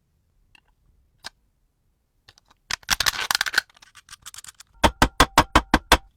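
Sharp mechanical clicks: a quick dense cluster of them about halfway through, then a run of about seven evenly spaced clicks, roughly six a second, near the end.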